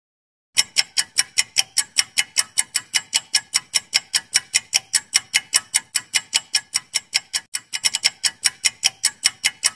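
Ticking-clock sound effect of a quiz answer timer: sharp, even ticks about five a second, starting about half a second in.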